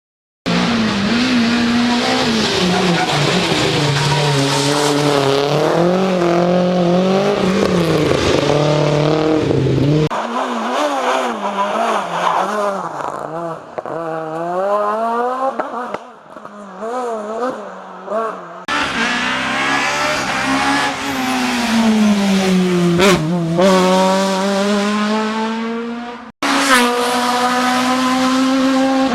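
Rally cars at full race pace, engines revving hard and rising and falling in pitch with gear changes and lifts through corners. The sound breaks off abruptly three times as it cuts from one car to the next.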